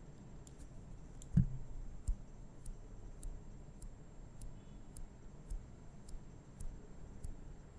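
Faint, sharp clicks at a steady pace of about two a second, with one low thump about a second and a half in.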